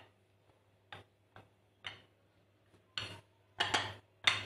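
Wooden rolling pin working a thin sheet of dough on a stone countertop: about six short, irregular knocks as the pin's strokes clack on the hard surface, coming closer together near the end, over a faint low hum.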